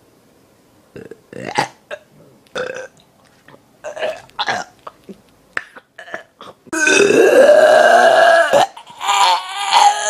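Human burping: a few short, faint sounds, then a loud, long burp about seven seconds in that lasts about two seconds. Near the end a second, higher-pitched, strained burp begins, more of a squeal than a burp.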